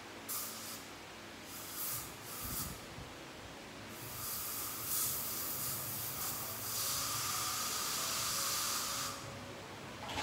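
Hissing from dental treatment equipment: three short bursts, then a steady hiss with a faint whistle that lasts about five seconds and cuts off.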